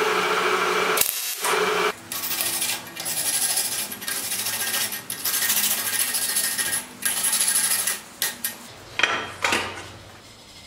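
Welding arc crackling steadily for about two seconds, with one short break, as a bolt is welded to a steel plate. Then a steel wire brush scrubs the fresh weld in a run of rough back-and-forth strokes, ending in a few short scrapes.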